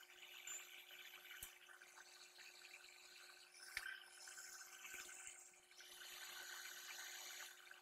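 Near silence: faint room tone with a steady low hum and a few soft clicks.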